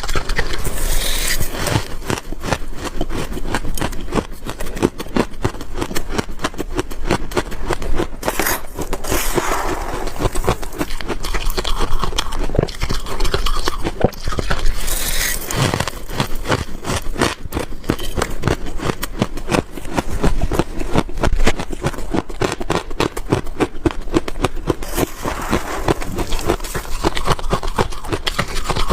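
Freezer frost being bitten and chewed, a dense, continuous run of crunching and crackling.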